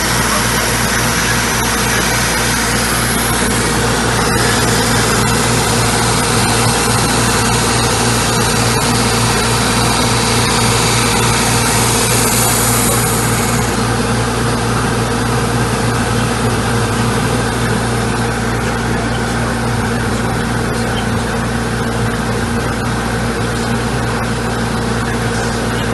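A homemade drum sander running steadily with a motor hum and a sanding hiss. The high part of the hiss falls away a little past halfway.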